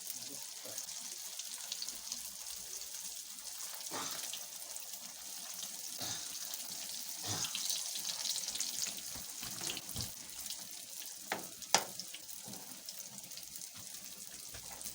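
Pieces of yeast dough deep-frying in hot oil: a steady sizzling hiss with scattered small clicks, and one sharp click about twelve seconds in.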